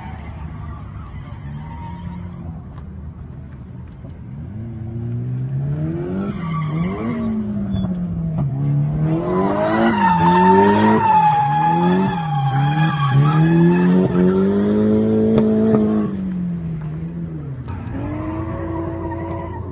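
Drift car's engine revving up and down over and over as it slides sideways through the corners, with tyres squealing. It grows loud about ten seconds in as the car swings past close by, then drops back to a distant engine note near the end.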